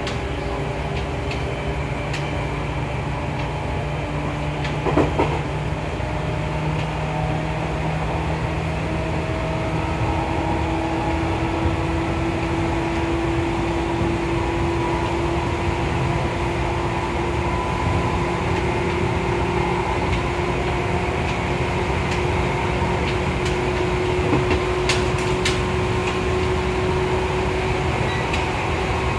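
Seibu 2000 series field-chopper-controlled electric train running at speed, heard inside the passenger car: a steady rumble of wheels on rail under a traction-motor hum that slowly rises in pitch. There is a brief clatter about five seconds in.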